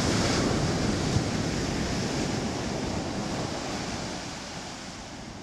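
Ocean surf breaking and washing up a sandy beach, a steady rushing of water that fades away gradually over the last couple of seconds.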